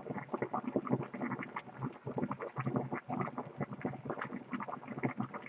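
TaoTronics handheld clothes steamer at full boil, the water in its tank bubbling hard in quick, irregular pops. The unit is fully heated and putting out steam.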